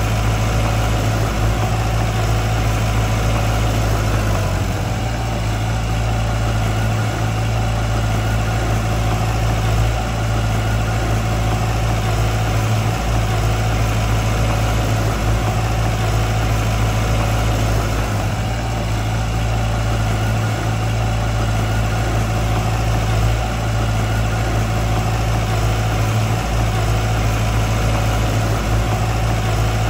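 Diesel engine of a piece of heavy earthmoving machinery running steadily with a deep, even hum.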